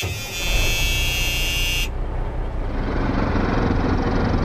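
Quad ATV engines running steadily. Over the first two seconds a high buzzing, horn-like tone sounds on top of them and then cuts off suddenly.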